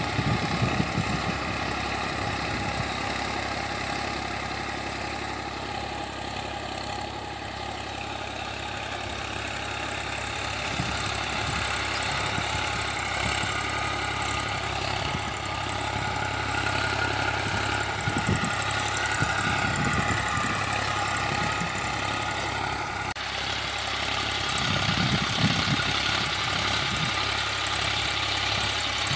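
Massey Ferguson 241 DI tractor's three-cylinder diesel engine running steadily under load while it drives a rotavator through the soil. The tone changes abruptly about three-quarters of the way through.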